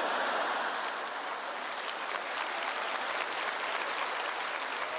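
A live audience applauding, a dense patter of many hands clapping, loudest at the start and then steady.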